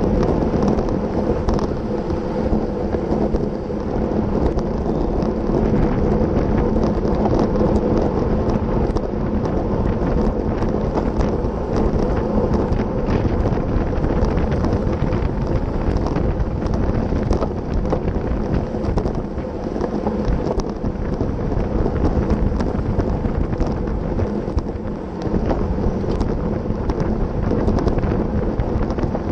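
Wind rumbling and buffeting on the microphone of a racing bicycle in a fast-moving pack, with tyre noise on cracked asphalt, steady throughout.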